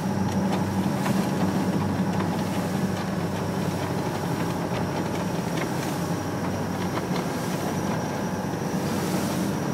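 Boat engine running steadily while under way, a low even drone heard from inside the wheelhouse.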